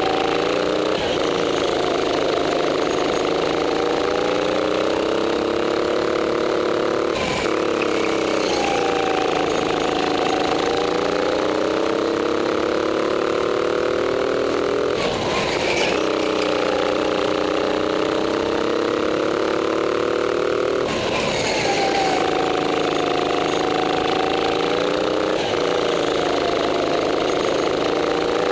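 Go-kart engine heard from the driver's seat under hard running, its pitch climbing steadily down each straight and dropping sharply three times as the throttle is lifted for corners, with a brief rush of noise at each lift.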